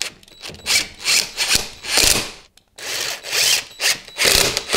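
Cordless impact wrench running in several short bursts, driving in wheel bolts to pull the wheel and hub spacer tight against the hub.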